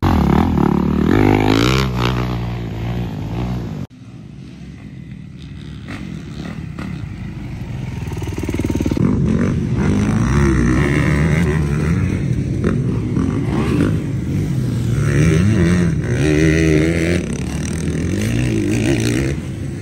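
Dirt bike engines. A motocross bike revs hard and pulls away close by for the first few seconds. After a sudden cut, more dirt bikes rev and accelerate around the track, getting louder over several seconds with repeated rises and falls in pitch.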